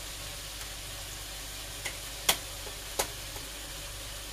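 Vegetable pieces sizzling steadily in a frying pan, with three short sharp taps about two, two and a half and three seconds in.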